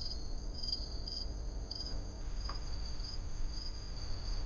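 Crickets chirping: a high, steady trill that swells in short repeated pulses, over a low, even background rumble.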